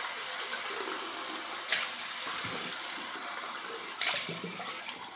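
Bathroom tap running warm water into a shaving mug to rinse out shaving-soap residue, a steady splashing hiss that eases a little about three seconds in. Short sharp clicks come about two and four seconds in.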